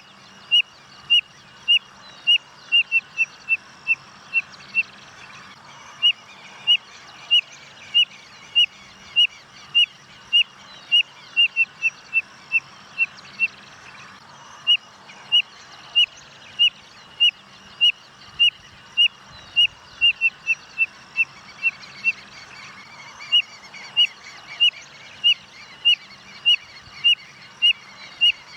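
Spotted nothura (codorna-amarela) calling: a long series of short, high whistled notes, about two a second. Three times the notes speed up into a quick run, break off, and then begin again.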